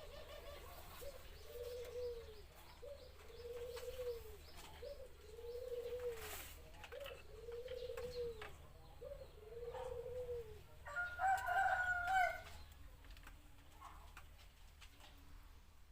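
Zebra dove (Java dove) cooing: a series of five soft, arched, low coos, each led by a short note and coming about every two seconds. A louder, higher call follows about eleven seconds in.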